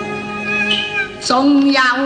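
Chinese opera-style song: a singer holds a long note, then starts a new phrase with a wavering pitch about a second and a half in, over string accompaniment.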